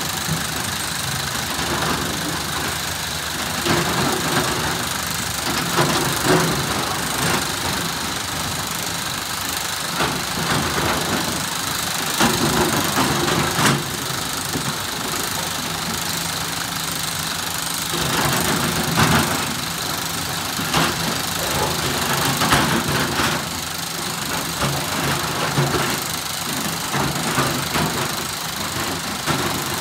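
Large hydraulic excavator's diesel engine running steadily, swelling louder in several stretches as it works under load, with a few knocks scattered through.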